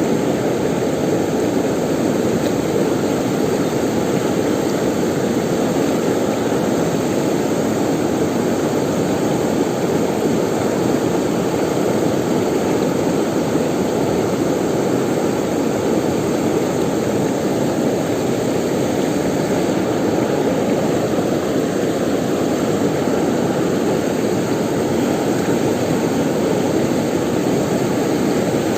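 River water rushing steadily, a constant loud wash of flowing water.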